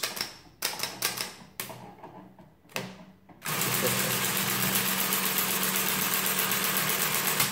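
A few sharp clicks as keys on a Friden ACG electromechanical calculator are pressed. About three and a half seconds in, its motor starts and the mechanism runs with a steady, fast clatter for about four seconds while the carriage shifts along, apparently cycling a minus (subtract) operation, then it stops.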